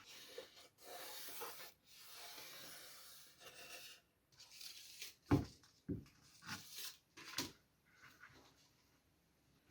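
Faint hand work on wood: a few soft rubbing or scraping strokes, then several light knocks a second or so apart.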